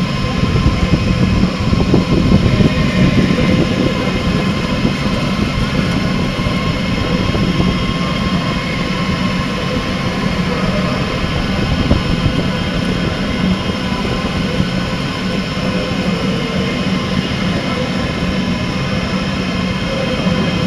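Delta WASP 3MT large-format 3D printer with pellet extruder running: a steady mechanical noise with several held tones, a little louder in the first few seconds.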